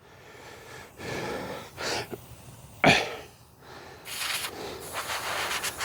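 Cleaning a small, grimy plastic part by hand: a run of hissing, breath-like noises, with one strong short puff about three seconds in and a brighter hiss with a few light ticks near the end.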